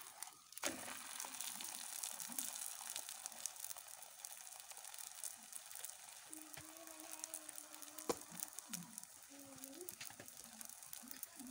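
Msemen flatbread frying in its own oil and butter on a cast-iron pan: a faint, steady sizzle with fine crackling, and a couple of light clicks from the spatula and pan.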